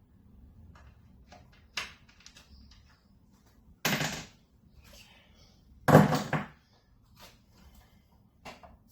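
Pool pump parts knocking and clunking as the pump is worked apart: light clicks of handling, then two loud clunks about four and six seconds in, the second the louder, as a jammed part is forced.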